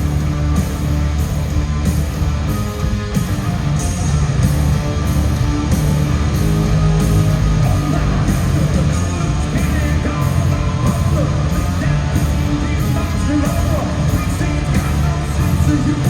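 Hard rock band playing live: heavy distorted electric guitars, bass and drums, with a lead vocal singing over them in the second half.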